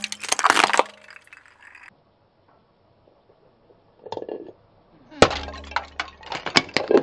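A car tyre crushing small ceramic bowls: a sharp crack and shatter at the start, then, after a quiet spell, another bowl breaking about five seconds in, followed by a dense run of crunching and clinking shards.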